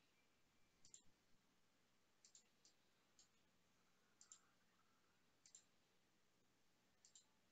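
Near silence broken by about a dozen faint, short computer mouse clicks, scattered and often in quick pairs or threes.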